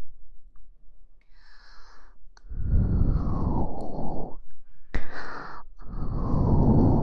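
A person breathing out slowly and audibly very close to the microphone: a short soft breath, then two long exhales, one about two and a half seconds in and one near the end. A single small click comes between them.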